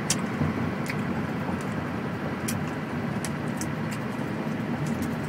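A large wad of gum being chewed open-mouthed, making short wet smacking clicks at uneven intervals. Under it runs the steady low rumble of the truck cab.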